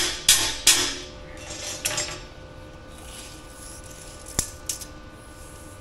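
Hammer blows on a steel rebar frame, knocking it toward square: a quick run of ringing metal strikes about a third of a second apart, then a lighter knock and two sharp taps later on.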